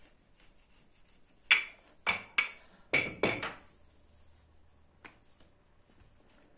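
Five sharp knocks of a hard object on a stone countertop, about a second and a half in, fading by three and a half seconds: a rolling pin being knocked and set down on a granite counter.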